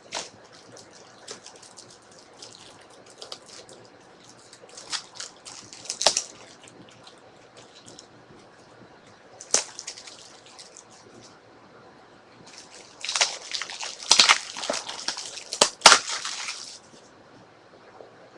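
Trading cards and plastic being handled: scattered rustles and sharp crackles, with a longer crinkling stretch of a few seconds near the end.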